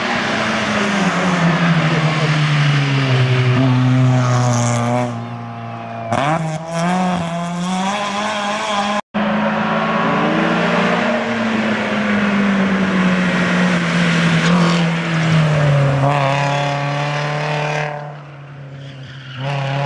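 Hill-climb race car engines revving hard and passing close, the pitch climbing and dropping again and again through gear changes and drive-bys. The sound cuts off abruptly about nine seconds in as one car gives way to the next.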